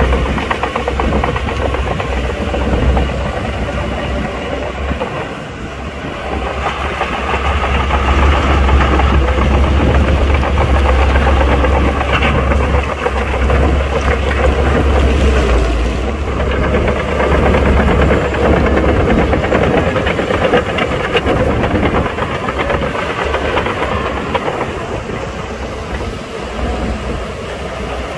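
Shantui crawler bulldozer's diesel engine working under load, with a dense mechanical clatter. It dips briefly about five seconds in, grows louder for several seconds in the middle and eases off near the end.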